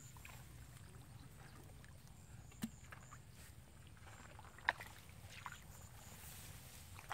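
Faint water sloshing and splashing, with a few short sharp knocks, the clearest about two and a half and four and a half seconds in.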